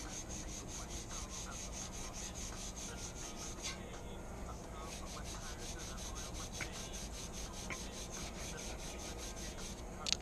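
Green abrasive pad loaded with rubbing compound scrubbing back and forth on a chrome bicycle wheel, in quick, even strokes, stripping paint off the chrome.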